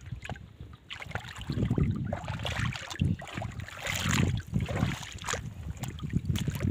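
Shallow seawater lapping and sloshing around rocks, with wind gusting on the microphone in uneven rumbles.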